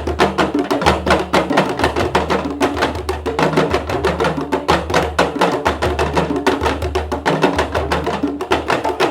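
Background music driven by fast percussion: rapid wood-block-like clicks over a steady drum beat and bass line.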